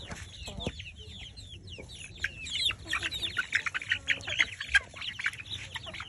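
A flock of chickens feeding, with many short, high clucks and calls overlapping. They grow busier and louder from about two seconds in.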